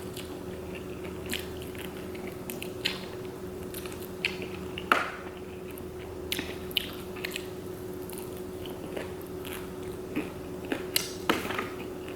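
A person chewing and crunching crispy fried Chinese takeout food, with irregular crisp crunches and mouth sounds, the loudest about five seconds in. A faint steady hum runs underneath.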